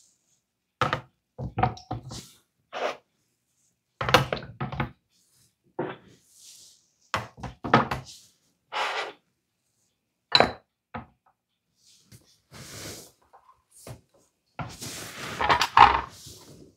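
Ceramic yogurt jars knocking and clinking as they are picked up and set down one by one into the water bath of a Luvele yogurt maker: a dozen or so separate knocks with pauses between them. Near the end, a longer rubbing noise as a loose rubber lid is fitted onto a jar.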